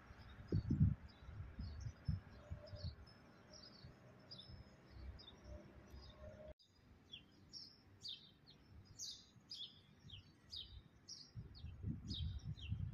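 Small birds chirping over and over: short, high, downward chirps, busier and louder in the second half. Low muffled thumps on the microphone near the start and again near the end.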